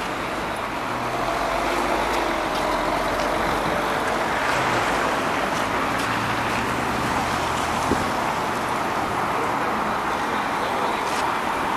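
Steady road traffic noise from cars and a truck passing on a wide city street, mostly tyre and engine noise, growing a little louder after about two seconds.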